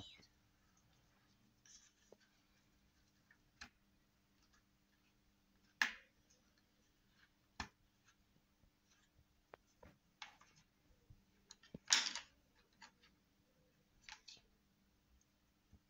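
Scattered light clicks, taps and short rustles of small plastic paint pots being handled and set down on a wooden table, the loudest about six and twelve seconds in.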